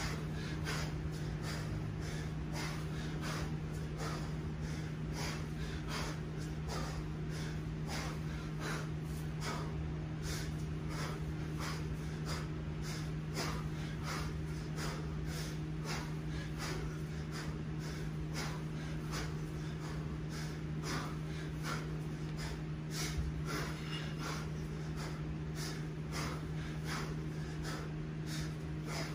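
Hard, rhythmic breathing of a man mid-way through a long set of kettlebell snatches: sharp forceful breaths, about two a second, paced with the lift and showing heavy exertion. A steady low hum runs underneath.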